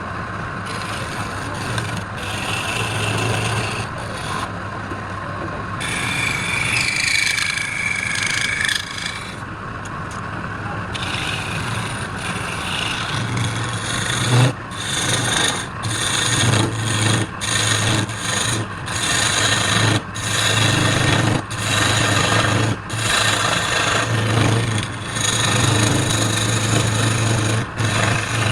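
Wood being rasped and scraped over a steady low machine hum, breaking into repeated strokes with short pauses from about halfway through.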